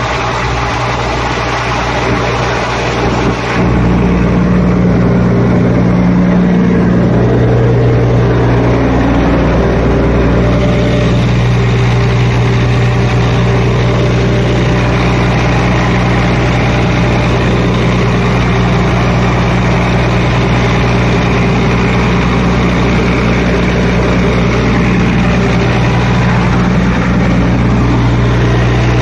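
Atlas Copco XRVS976 25-bar portable diesel air compressor running: a steady, loud engine drone with even low tones, getting louder about three and a half seconds in.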